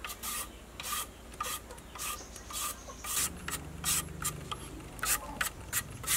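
A blade scraping the skin off a lotus root in short, repeated rasping strokes, about two a second, coming quicker in the second half.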